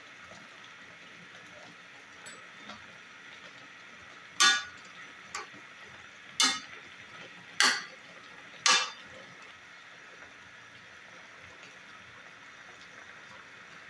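Metal spoon stirring chicken pieces in a metal wok, clanking against the pan five times about a second apart from about four seconds in. A steady faint hiss lies underneath.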